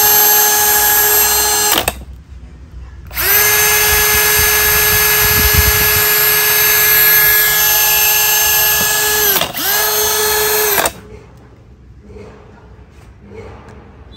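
Brushed cordless Milwaukee drill/driver running free with no load, a steady high whine. It stops, spins back up about a second later for several seconds, dips briefly, then runs once more before stopping for good.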